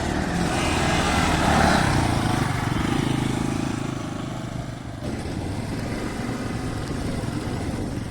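Motorcycle engines running, swelling louder in the first two seconds and then easing off; the sound changes abruptly about five seconds in and runs steadily after.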